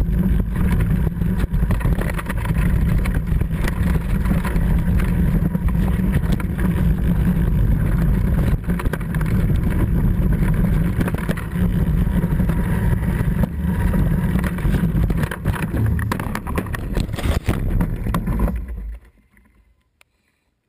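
Heavy wind rush on the camera microphone and the rattle and knocking of a mountain bike riding fast down a rough trail. A cluster of sharper knocks comes near the end, and then the noise cuts off abruptly as the bike goes down in a crash.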